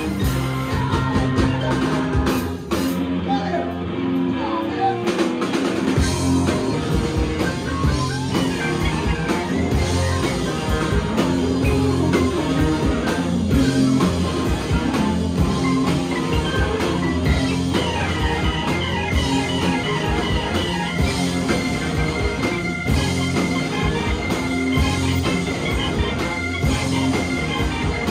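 Live rock and roll band playing: electric guitars, saxophones and a drum kit. About three seconds in, the drums and bass drop out briefly, and the full band comes back in about three seconds later.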